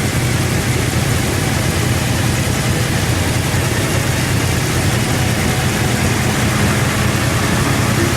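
Suzuki V-Strom motorcycle engine running steadily, with an even hiss of noise over its low drone.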